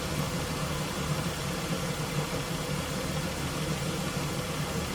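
Dodge Intrepid's V6 engine idling steadily with the air conditioning running; the engine has one misfiring cylinder.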